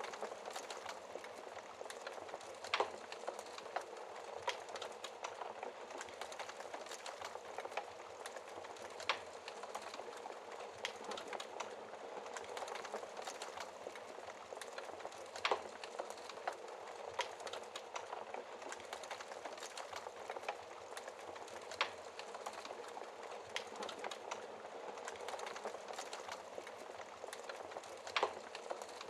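Wood fire crackling in a fireplace: a steady soft hiss of burning with frequent small irregular pops, and a louder sharp snap about every six seconds.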